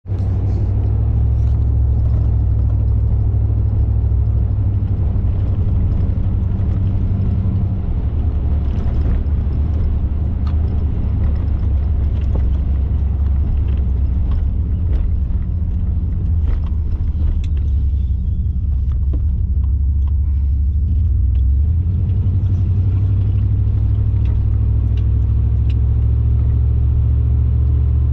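Car driving along a road: a steady low rumble of engine and tyre noise, with faint scattered ticks.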